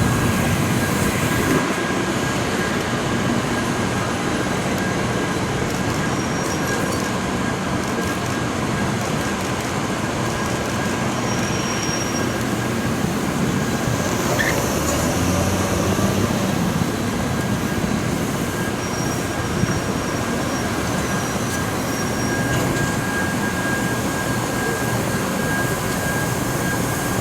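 700 series Shinkansen train rolling over a level crossing: a steady noise of wheels on rail, with a few short, faint high wheel squeals.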